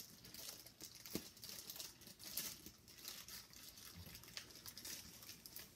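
Faint, irregular crinkling and rustling of paper and plastic packaging being handled.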